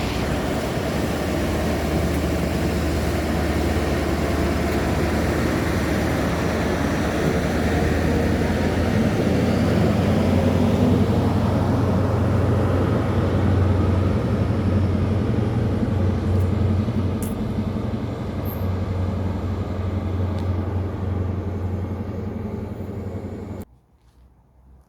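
Diesel engines of a Class 43 HST power car running with a steady, loud drone that swells a little midway through. The sound cuts off suddenly near the end.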